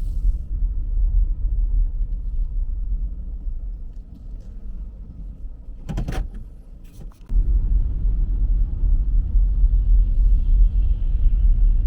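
Low rumble of road and engine noise from a moving car. It eases off for a few seconds mid-way, with a couple of sharp clicks, then comes back louder.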